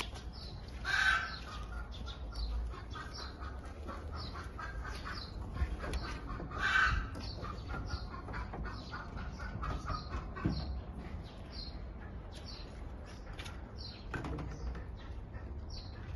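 Small birds chirping over and over, with two louder calls about a second in and around seven seconds, over a low steady rumble.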